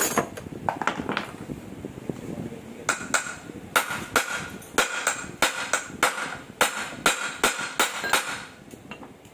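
Hand hammer striking a universal joint's metal cross and bearing caps on a wooden block. A few blows come early, then a quick run of about three a second, each with a short metallic ring, stopping shortly before the end.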